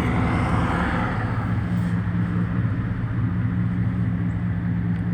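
Car engine running steadily as the vehicle rolls slowly, a low hum throughout, with a rushing road noise that fades over the first second or two.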